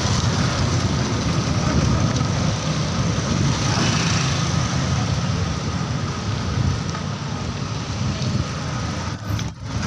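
City traffic noise heard from a moving bicycle, under a rough, low wind rumble on the phone's microphone; the noise drops briefly near the end.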